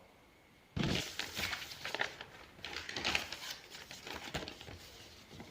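Rustling and crinkling handling noise with many small irregular clicks, starting abruptly about a second in and gradually growing fainter.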